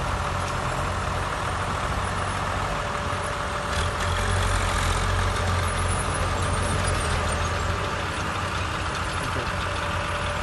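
Diesel farm tractor engines running steadily, a low rumble that swells a little about four seconds in and eases off again a few seconds later.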